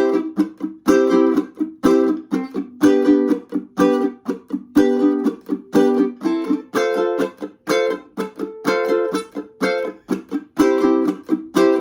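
Ukulele strummed in a steady rhythm using barre chord shapes. Each chord is cut short before the next strum, about once a second.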